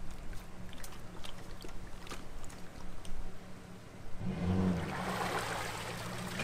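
A pickup truck's engine idles low, then pulls harder about four seconds in as it drags an empty jet-ski trailer up the ramp out of the lake, with water rushing and splashing off the trailer as it comes out.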